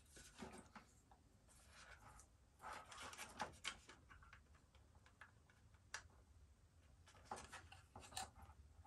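Near silence, broken by faint rustling and small clicks as computer cables and their plastic connectors are handled inside an open desktop tower case, with one sharper click about six seconds in.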